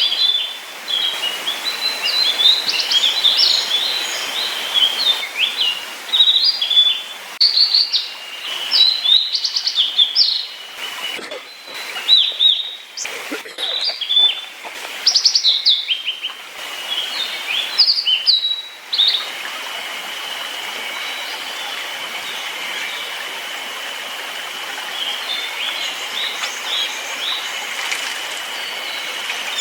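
Small songbirds calling and singing: rapid, overlapping high chirps and short trills. About two-thirds of the way through this gives way abruptly to a steady hiss with a thin, continuous high tone and only a few scattered chirps.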